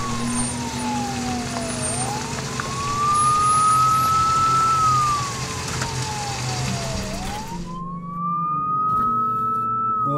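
Police car siren wailing: a slow rise and fall in pitch that repeats about every five seconds.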